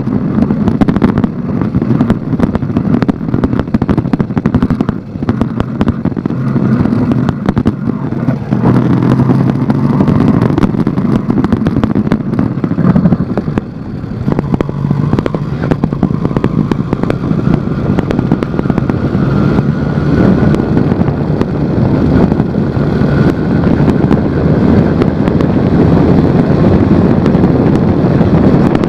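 Motorized bicycle's small engine running under way, its note rising and falling with the throttle. Frequent knocks and rattles come from the bike bouncing over a rough dirt trail, picked up by a phone on the handlebars.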